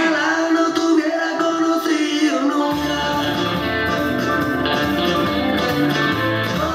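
Rock song with singing. The bass drops out for the first few seconds and comes back in nearly three seconds in.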